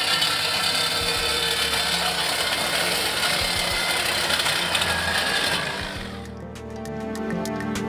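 DeWalt reciprocating saw cutting through a metal exhaust pipe, running steadily and stopping about six seconds in as the pipe is cut through. Background music comes in after it.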